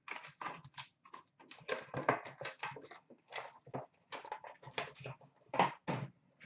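Foil-wrapped hockey card packs crinkling and rustling in the hands in a quick, irregular run of crackles as they are taken from the box and stacked, with two louder crackles near the end.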